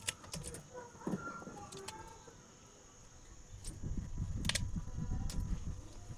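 Outdoor ambience: a steady high insect drone and a few faint bird chirps. From about four seconds in there is low rustling and rumbling handling noise with a sharp click.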